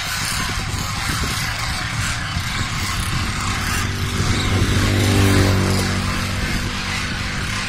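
A motor vehicle's engine passes, its low hum swelling about four seconds in and fading after six. Behind it runs a continuous chatter of a large flock of demoiselle cranes calling.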